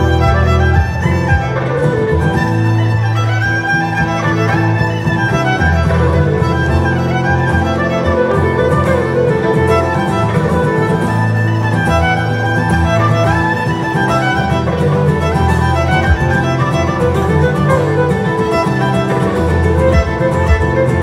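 Instrumental music led by a violin, playing at a steady level.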